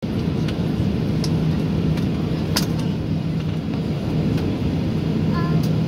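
Inside the cabin of a Boeing 737-800 taxiing, its CFM56-7B jet engines at low thrust: a steady low hum and rumble, with a few faint clicks and rattles.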